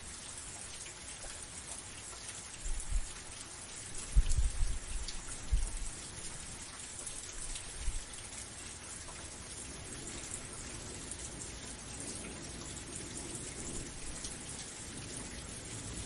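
Steady rain falling, an even hiss of many drops. Several short low rumbles stand out between about two and eight seconds in.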